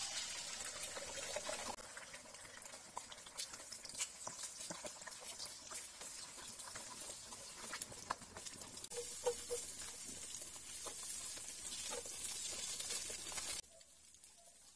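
Eggs sizzling in hot cooking oil in a stainless steel wok, a steady hiss with many small crackles and pops. It starts suddenly and cuts off suddenly near the end.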